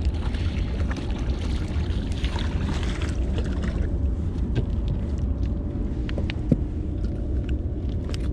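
Walleye splashing at the water's surface as it is landed beside the boat, over a steady low rumble of wind on the microphone. A single sharp knock about six and a half seconds in.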